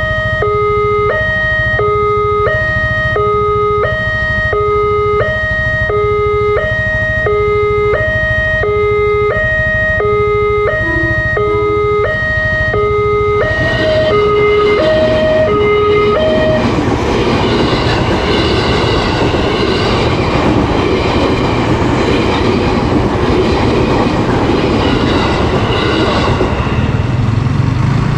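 Railway level-crossing alarm on a LEN pole sounding a steady two-tone alternating signal, low then high, about once a second. From about halfway in, an electric commuter train runs through the crossing, and its wheel and rail noise drowns out the alarm.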